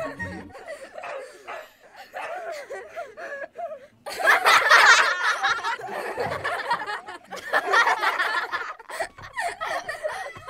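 People laughing and giggling, with a sudden loud outburst about four seconds in.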